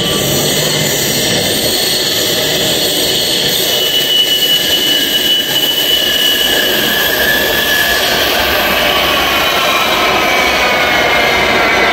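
Tram approaching through the tunnel and pulling into an underground station: a steady, loud rush of wheels on rail with a high whine, which slides down in pitch in the last few seconds as the tram slows.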